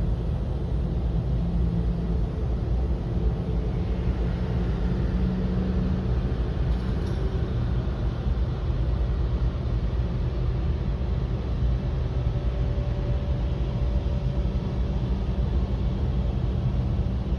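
Jet airliner engines running: a steady low rumble with a faint hum, holding even throughout.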